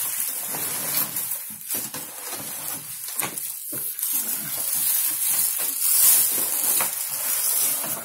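Clear plastic wrapping crinkling and rustling in uneven spurts as hands pull it back from a washing machine in its cardboard box, with a few sharper crackles.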